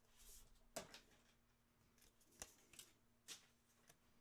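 Faint handling of trading cards: a short swish as they slide against one another, then three or four light clicks and taps as cards are shuffled and set down. The loudest click comes about a second in.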